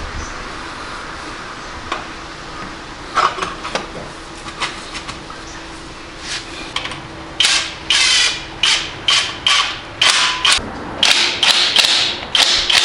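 Rubber mallet striking the exhaust parts as a new motorcycle muffler and link pipe are tapped into place: a few scattered taps, then from about halfway a quick run of blows, two to three a second, each with a short ringing tone.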